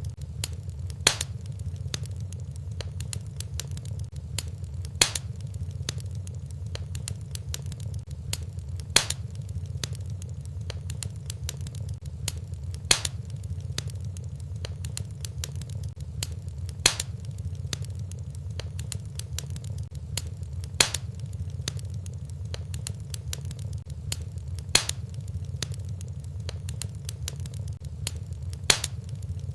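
Fireplace fire crackling over a steady low rumble, with many small ticks and a sharp, loud pop about every four seconds.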